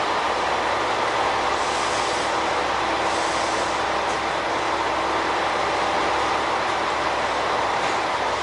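Steady running noise of diesel railcars idling at a station platform, with a faint constant tone under it.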